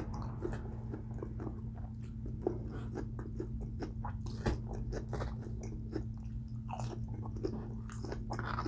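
A person chewing food close to the microphone: a run of small wet clicks and smacks, irregular rather than rhythmic. A steady low hum sits underneath.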